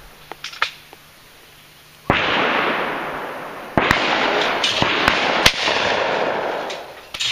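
Two shotgun shots at sporting clays targets, about a second and a half apart, each followed by a long rolling echo.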